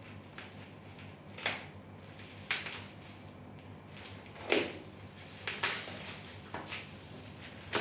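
Scissors cutting open the seal of a cardboard product box, heard as irregular short snips and rustles of packaging, the loudest about four and a half seconds in.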